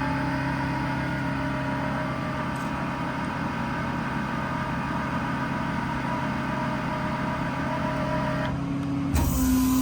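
Ram 5500's Cummins diesel engine running steadily with an even hum. The sound changes abruptly about nine seconds in.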